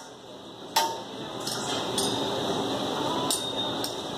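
Hibachi chef's metal spatula clinking on the steel teppanyaki griddle: one sharp strike about a second in, then a few lighter clinks.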